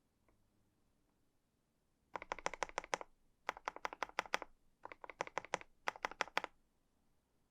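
Typing on a KBD67 Lite R3 mechanical keyboard: four quick runs of key clicks, about ten keystrokes a second, starting about two seconds in with short pauses between.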